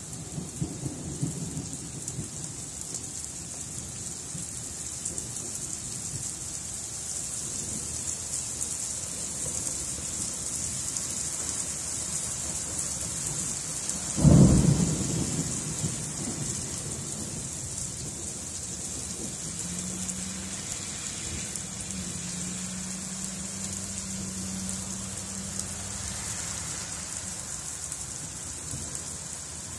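Thunderstorm: steady rain falling on pavement, with a low rumble of thunder at first and one sudden sharp thunderclap about halfway through that rolls away over a couple of seconds.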